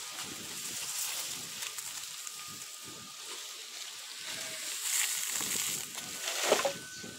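Garden rake scraping over dry dirt and dragging cut weeds into a pile, in uneven strokes that grow louder past the middle.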